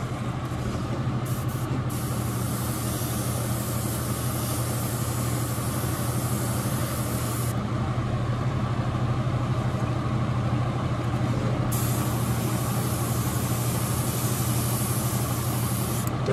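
Airbrush spraying paint with a steady hiss: a few short spurts, then two long passes of several seconds each with a pause of about four seconds between them. Under it runs the steady low hum of the spray booth's exhaust fan.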